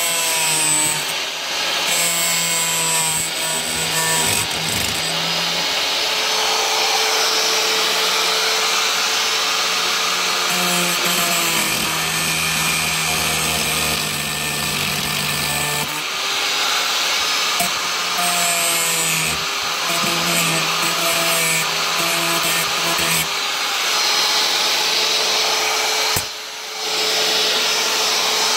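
Handheld power tool cutting through the FRP (fibreglass-reinforced plastic) roof panel of a pop-up camper, its motor pitch wavering as it bears on the material. It stops briefly near the end, then starts cutting again.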